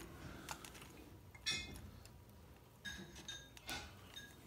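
Metal pliers clicking and clinking against a small DC motor's terminals and casing while old glued wiring is worked off, with a few short metallic rings.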